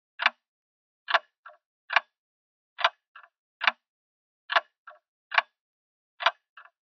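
Grandfather clock ticking steadily: a sharp tick a little more often than once a second, with a fainter click just after every other tick, and silence between.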